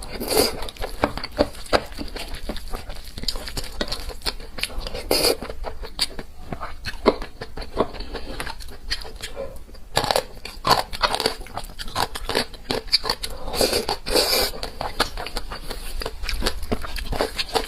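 Close-miked eating sounds: a person chewing food, with a dense run of wet clicks and mouth smacks and louder bites every few seconds.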